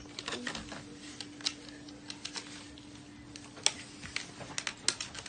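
Scissors cutting and handling a clear plastic toy package: a run of small, irregular clicks and crinkles, with one sharper click about two-thirds through. A faint steady hum sits underneath.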